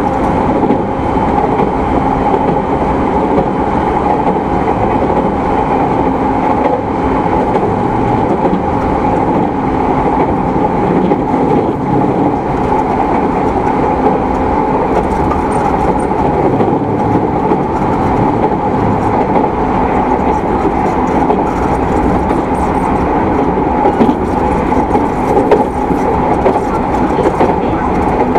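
Running noise aboard a motor car of a refurbished JR East E217-series electric commuter train at steady speed: a constant rumble of wheels on rail with a steady whine from the traction motors and gearing.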